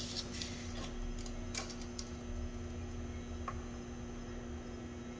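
Brief scratching strokes of a pencil marking a plywood board along a tape measure, with a small click about three and a half seconds in, over a steady low hum.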